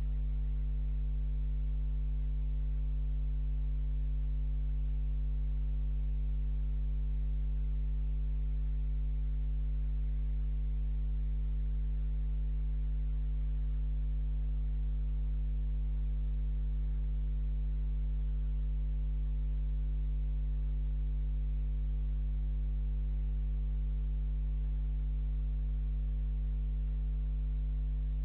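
Steady low electrical hum with a few higher overtones, unchanging, with faint hiss behind it.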